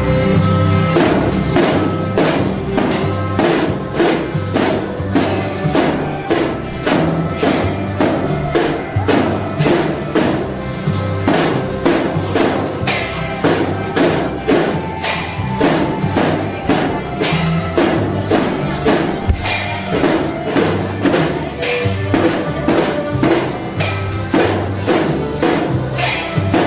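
Children's percussion band of snare drums, a bass drum and hand cymbals beating a steady marching rhythm together over a melody, with a jingling tambourine-like shimmer.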